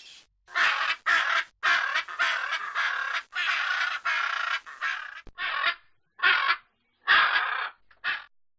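Macaw squawking: a run of harsh, raspy calls, then four shorter squawks near the end.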